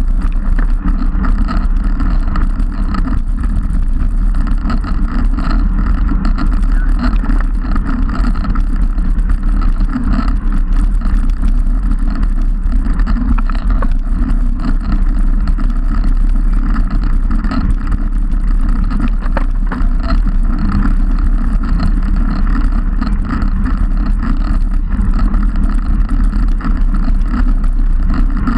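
Wind buffeting the microphone of a camera mounted on a road bike's handlebars, mixed with tyre and road rumble as the bike rolls along: a loud, steady rumble.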